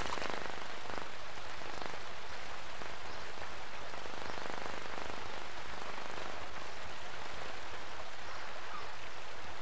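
Steady, even hiss of a flowing river, with no separate splashes or knocks.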